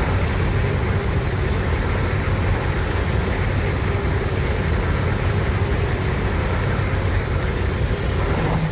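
Steady, heavy low rumble with a hiss over it, a monster-film sound effect.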